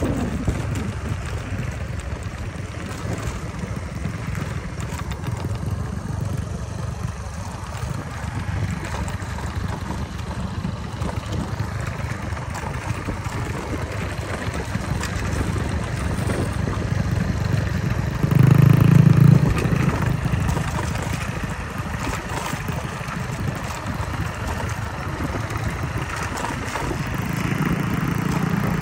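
An engine running steadily, with a short louder stretch about eighteen seconds in.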